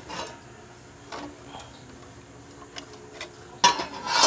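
Metal parts of a sewing machine clutch motor clicking and clinking as they are handled during disassembly, with a few louder knocks near the end.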